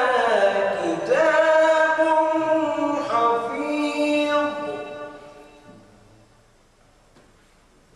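A man's solo voice reciting the Quran in melodic tajweed, holding long notes that glide up and down. The recitation ends about five seconds in and fades out, leaving only the low hum of the room.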